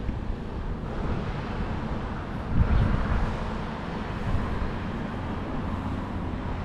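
Steady low outdoor rumble, with a brief louder swell about two and a half seconds in.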